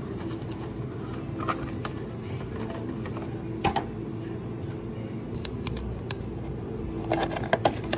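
Light clicks and taps of clear plastic containers being handled on a counter, scattered through and bunched near the end, over a steady low hum of cafe equipment.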